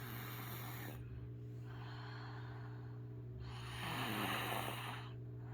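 Someone asleep and snoring: three slow, noisy breaths. The last and loudest, about four seconds in, carries a rattling snore. A steady low hum runs underneath.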